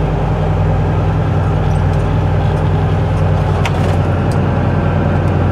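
Semi truck's diesel engine running at low speed, a steady low drone heard from inside the cab.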